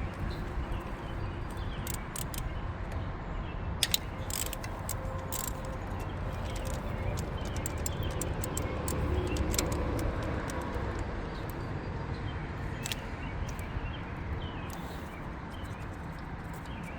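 Socket wrench working a stubborn, rusted 10 mm coil-pack bolt on a Honda Civic engine, giving scattered irregular metallic clicks over a steady background noise.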